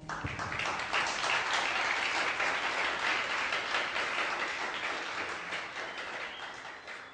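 Audience applauding, breaking out all at once and slowly thinning out toward the end.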